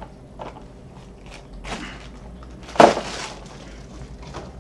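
Plastic wrapping and cardboard rustling as items are handled in and around a cardboard shipping box, with a few scattered knocks; the loudest is one sharp knock a little past halfway.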